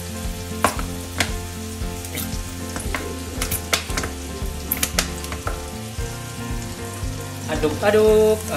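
Tofu and egg sizzling in a stainless steel frying pan, with a few sharp clicks and scrapes of a slotted spatula against the pan as it is stirred.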